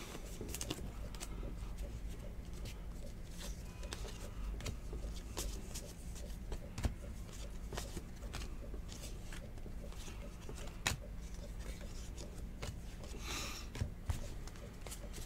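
Trading cards being handled by hand: faint clicks and soft slides of card stock as a stack is thumbed through, with a brief rustle near the end, over a low steady hum.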